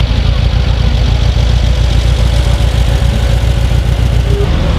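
Volkswagen Beetle's air-cooled flat-four engine running as the car drives slowly past, a steady low note.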